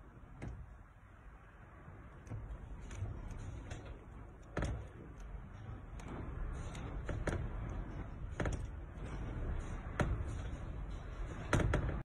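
Low rumble of gusting storm wind, growing louder, with scattered sharp knocks and rattles.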